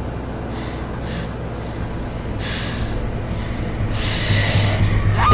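Heavy breathing: a run of short breaths or gasps, the last one longer and louder, over a low steady hum.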